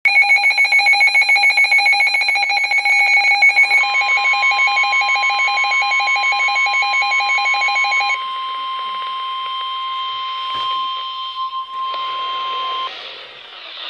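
A weather radio's rapidly pulsing electronic alert beep runs for about eight seconds. From about four seconds in it is overlapped by the NOAA Weather Radio warning alarm tone, a single steady pitch. That tone carries on alone after the beeping stops and cuts off about a second before the end, signalling an incoming warning.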